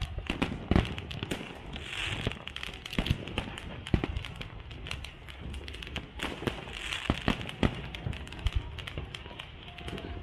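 Fireworks display: many sharp bangs of shells bursting at irregular intervals. There are two longer crackling, hissing bursts, about two seconds in and about seven seconds in.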